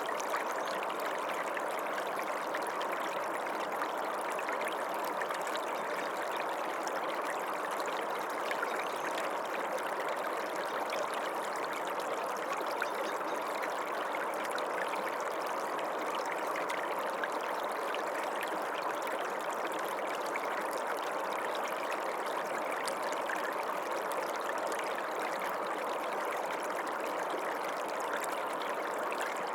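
Running water of a small stream: a steady, even rush that does not change.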